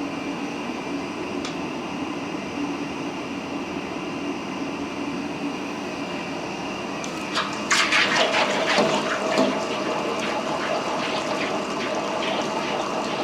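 Hot 1045 carbon steel ball quenched in a water tank: about seven seconds in, a sudden loud sizzling crackle of water boiling against the steel, easing off but still crackling to the end, over a steady rushing background.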